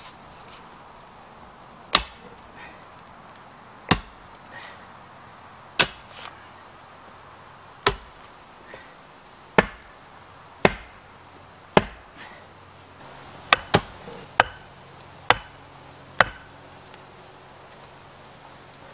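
Axe chopping wood: about a dozen sharp blows, spaced about two seconds apart at first and then coming quicker, stopping a few seconds before the end.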